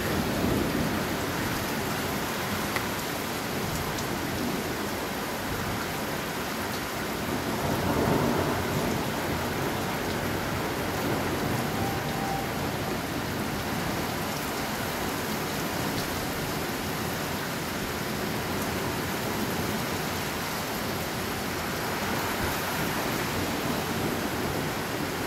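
Steady rain falling in a thunderstorm, with a few faint drop ticks. A rumble of thunder swells up about eight seconds in and dies away.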